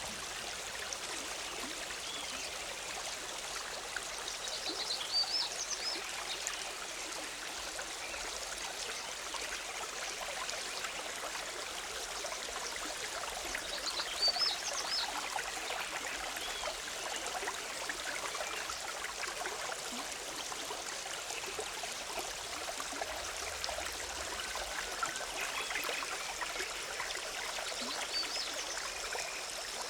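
Forest river bubbling and trickling over rocks in a steady rush. Birds give short, high chirps a few times, most clearly about five seconds in and again about fourteen seconds in.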